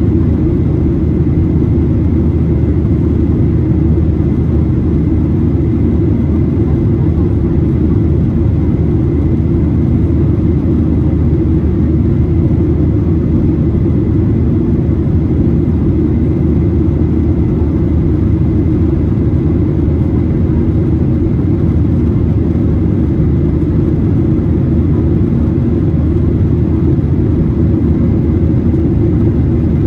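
Boeing 737-800 jet engines and airflow heard inside the passenger cabin as a steady deep rumble, with faint steady hums at a few higher pitches, typical of the climb after takeoff.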